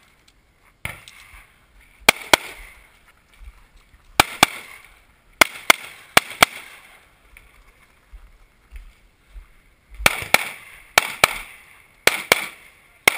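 Semi-automatic pistol gunshots fired in quick pairs, about fifteen shots in all, with a pause of a few seconds midway. Each crack has a short echo.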